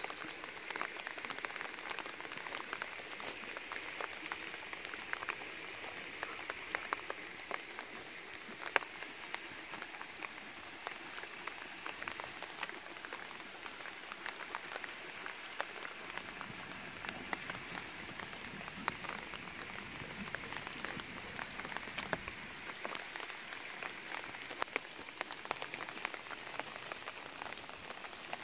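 Light, steady rain falling, with many small drop ticks. A low rumble swells under it for a few seconds past the middle.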